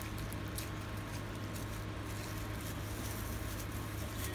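Faint rustling and small ticks as a thermal-transfer ribbon roll and its plastic wrapping are handled on a glass counter, over a steady low hum.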